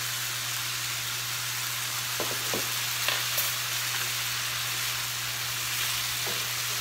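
Diced chicken frying in butter in a nonstick pan, a steady sizzle as soy sauce is spooned in. A few light utensil clicks come about two to three seconds in, and a spatula stirs the chicken near the end.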